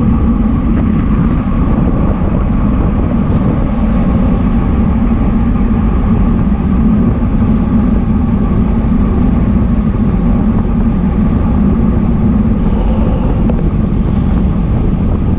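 Steady wind noise buffeting a bicycle-mounted camera's microphone at racing speed, mixed with road bike tyres running on asphalt.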